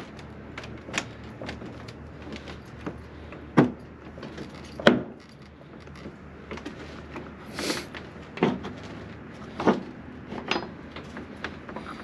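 Metal latch bar on a wooden door being worked by hand: irregular knocks, clacks and rattles, the two sharpest about three and a half and five seconds in, with a brief scrape near eight seconds.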